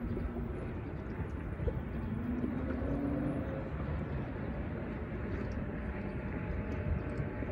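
Steady outdoor rumble of wind noise on the microphone, with a faint distant engine hum showing about two to three seconds in.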